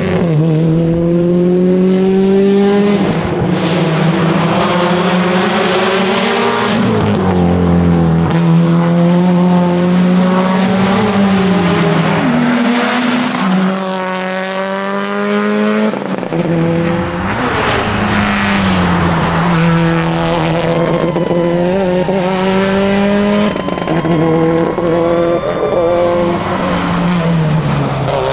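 Subaru WRX STI's turbocharged flat-four engine driven hard at race pace, its note climbing through the gears and dropping sharply on lifts and shifts several times.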